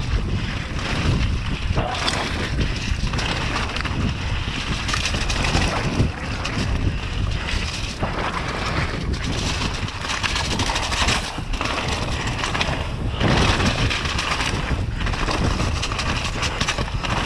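Mountain bike descending a dirt forest trail at speed: wind buffeting the GoPro's microphone over the rumble of the tyres on dirt, with frequent clattering knocks as the bike hits roots and bumps.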